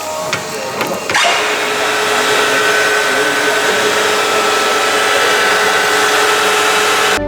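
Harrison M300 centre lathe: a few clicks, then about a second in the machine starts up and runs with a steady whine over a loud even noise.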